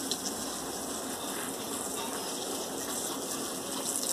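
A steady hiss, brightest in the high range, starting and stopping abruptly.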